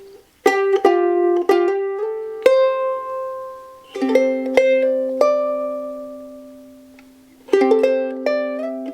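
Soprano ukulele with a Tasmanian blackwood body and Adirondack spruce top, freshly strung and played with added reverb. A few single notes are picked in turn, then chords are struck about four seconds in and again near the end, each left to ring out and slowly fade, which shows off its sustain.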